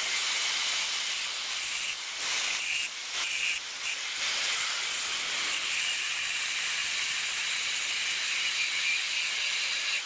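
Angle grinder with a cut-off disc cutting through the metal tube of a scooter frame: a steady hiss of the disc in the metal, with a thin high whine over it that fades out about six seconds in.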